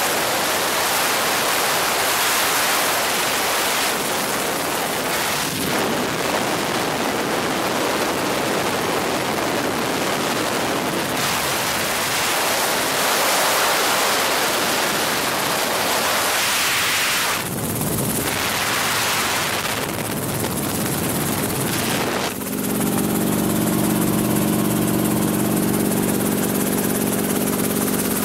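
Helicopter cabin noise in flight: a loud, even rush of wind on the microphone. A bit over twenty seconds in, it changes to the steady pitched drone of the helicopter's engine and rotors.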